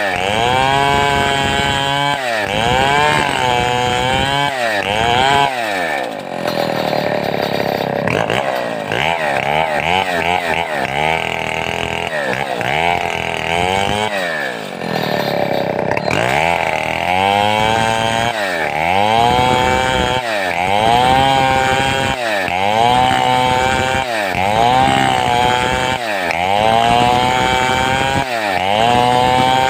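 A large two-stroke chainsaw of the Stihl 070 kind cutting wood, its engine speed rising and falling about every two seconds as the saw is swung back and forth in the cut. Through the middle the swells are longer and less even.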